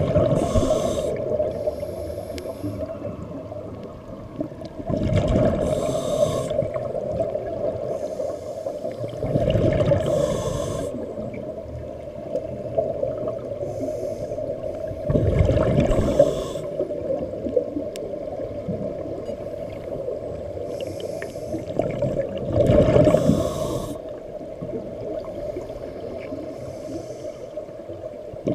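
Scuba regulator breathing underwater: exhaled bubbles rush out about every five to six seconds, each lasting a second or so, with fainter hissing inhalations between, over a steady hum.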